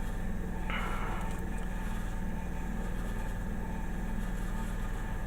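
A steady low mechanical hum, with a brief soft hiss about a second in.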